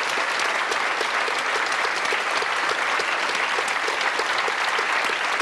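Studio audience applauding: many hands clapping together at a steady level.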